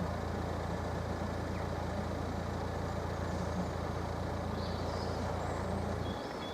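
A road vehicle's engine idling steadily with a low hum, cutting off abruptly near the end as it is switched off.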